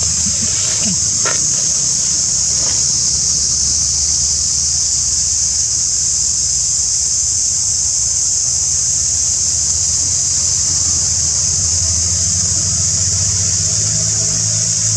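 Steady, high-pitched drone of a cicada chorus in the forest canopy, with a low engine-like rumble underneath. A few short, faint chirps come in the first few seconds.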